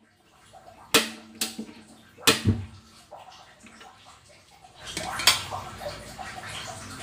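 A few sharp metal clanks, then cooking oil poured from a plastic jug into a metal wok, a steady splashing pour that starts about five seconds in.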